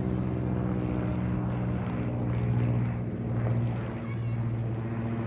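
Two airplanes flying over, their engines making a steady drone with a strong low hum.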